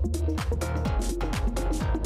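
Background electronic music with a fast, steady beat and a deep bass line.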